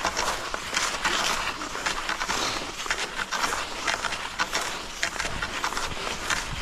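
Cross-country skis sliding and scraping on groomed snow, with irregular sharper crunches from strides and pole plants.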